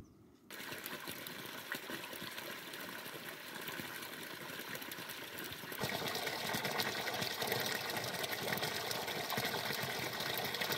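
Spring water pouring in a steady stream from a pipe and splashing onto rocks and into a shallow pool. It starts about half a second in and grows louder a little past halfway.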